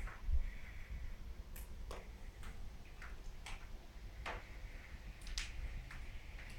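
Footsteps on a floor strewn with broken plaster and debris, a sharp crunch or click every half second to a second, over a low steady rumble.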